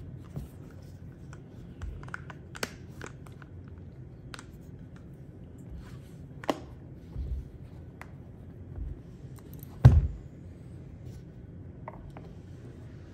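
Scattered clicks and light knocks of hands fitting plastic grip panels onto a Planet Eclipse 170R paintball marker's frame and turning the marker over on a bench mat, with one louder knock a little under ten seconds in.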